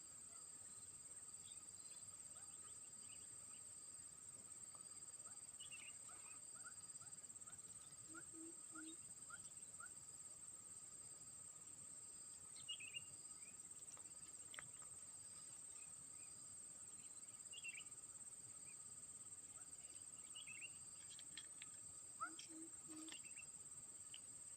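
Faint, steady high-pitched chorus of insects droning without a break, with scattered short bird chirps over it.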